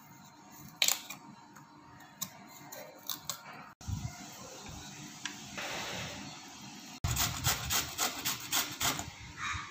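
A knife scraping the rind off an ash gourd, with a few sharp clicks, then ash gourd being grated on a stainless-steel box grater: quick, even scraping strokes, about five a second, the loudest part near the end.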